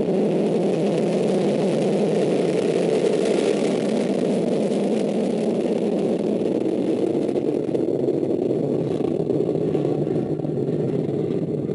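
Vega rocket's P80 solid-fuel first-stage motor firing at liftoff: a loud, steady rushing rumble. Its higher part thins a little in the last few seconds as the rocket climbs away.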